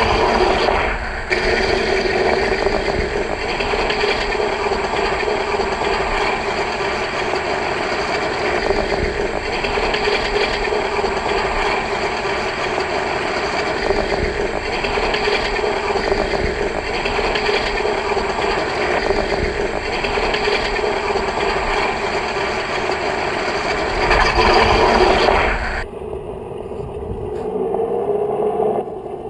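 Propeller-plane engine running steadily at a constant pitch. It swells briefly, then cuts suddenly near the end to a quieter, thinner engine sound.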